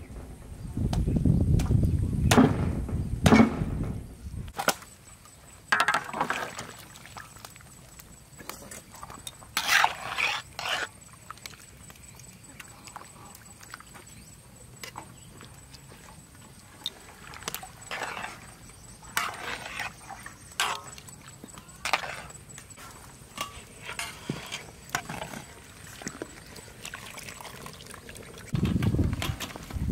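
Cleaver chopping pork on a wooden chopping block, a few sharp strikes in the first few seconds. After that, scattered light clinks and small splashes as meat is handled in a pot of water with metal tongs.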